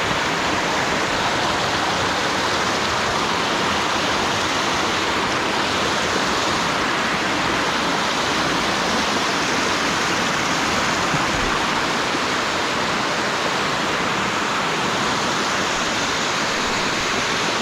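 Water rushing steadily down a rocky stream bed below a waterfall, a constant loud splashing flow.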